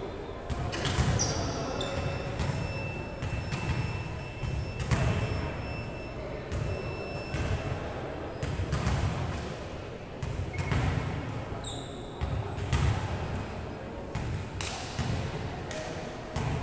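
Volleyball being struck and bouncing off a hard court floor: scattered sharp thuds at irregular intervals, one to a few seconds apart, with players' voices.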